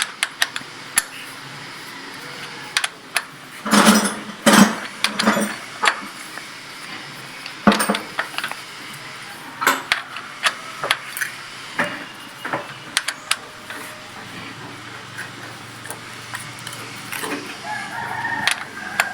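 Metal hand tools clicking and knocking irregularly on the tractor engine, as in valve-clearance adjustment. Near the end a rooster crows once.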